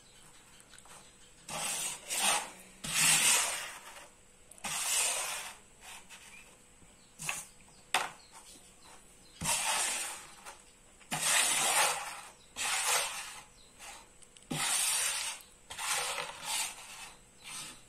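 Carrom coins slid across a powdered carrom board as they are pushed into the centre circle: about a dozen short scraping slides at irregular intervals, with a couple of sharp clicks in the middle.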